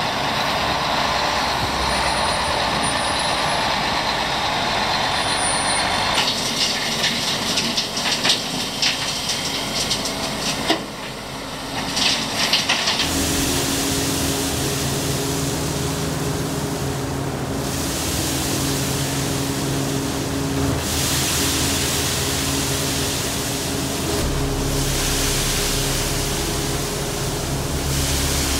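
Heavy dump truck running at the street, with a dense rattle of crushed concrete from about six seconds in. After about thirteen seconds the sound changes to crushed concrete fill pouring down through ventilation grates into a tunnel in repeated swelling rushes, over the steady hum of a bulldozer's diesel engine.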